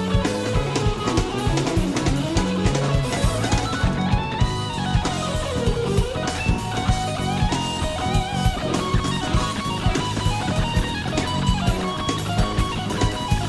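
Live jazz-fusion band playing at full tilt: an electric guitar lead line over bass, keyboards and a driving drum kit beat.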